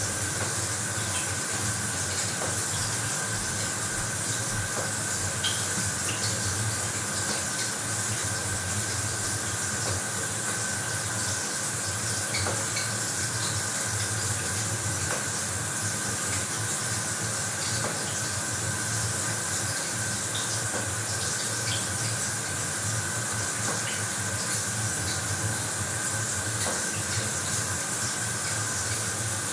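Shower running steadily, the spray making an even hiss with scattered droplet patters.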